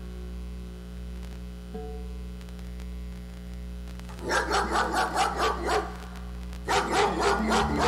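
Recorded dog barking played through the stage PA as a sound effect: a quick run of barks, about four or five a second, starting about four seconds in, a short break, then more barks near the end. A steady mains hum from the sound system sits underneath.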